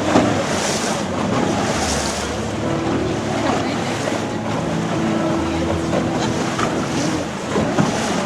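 A boat under way: a steady low engine hum under the rush of water and wind buffeting the microphone.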